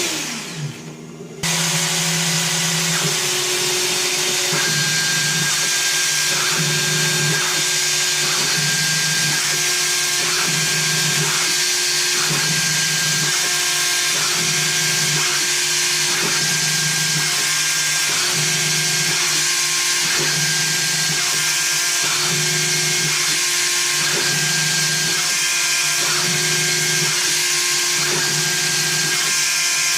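Small CNC mill's spindle running steadily with a high hiss as it cuts a wooden keycap. The tones of the axis motors switch on and off about once a second as the tool steps through its toolpath passes. The sound dips and falls in pitch at the very start, then cuts back in sharply.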